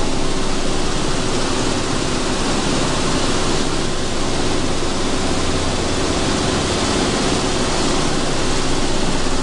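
Sunflower seed hulling machine running steadily: a constant dense rushing noise over a steady low machine hum.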